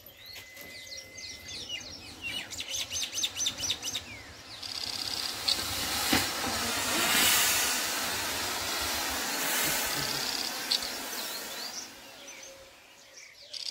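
Handheld colour smoke sticks burning with a steady hiss as they pour out coloured smoke. The hiss starts about four seconds in and dies down near the end. Birds chirp before it starts.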